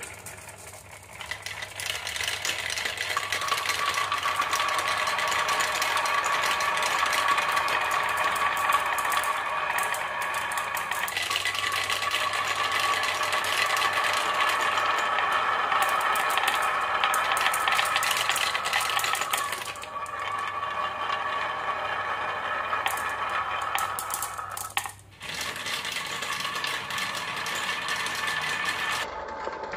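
Marbles and toy vehicles rolling down a marble-run track: a continuous dense rattle of small clicks with a steady ringing tone. It builds up a moment in and drops out briefly about 25 seconds in.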